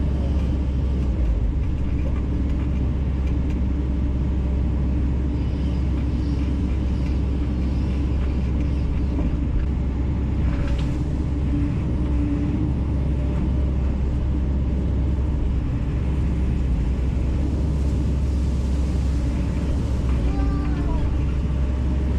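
Kobelco 210 LC-9 excavator's diesel engine running steadily, a constant low drone while the machine works.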